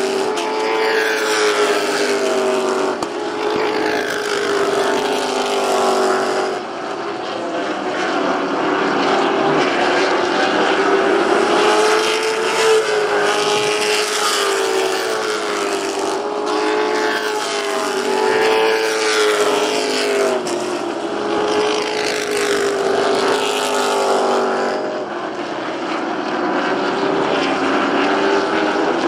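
Several stock car engines running at racing speed together, their pitch rising and falling in waves every few seconds as the cars lift into the turns and accelerate down the straights.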